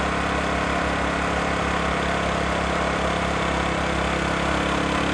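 Motorcycle engine running steadily at an even speed, its raised rear wheel turning a pulley that drives a borewell water pump.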